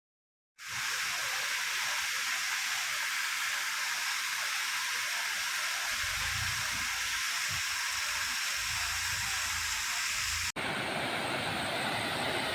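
Steady rushing of flowing water, an even hiss that starts suddenly about half a second in. It breaks off sharply near the end and picks up again with a slightly different sound.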